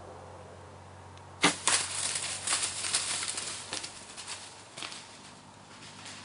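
A bow shot: a sharp crack about a second and a half in, followed by a few seconds of irregular crackling rustle, as through dry leaves, that fades away.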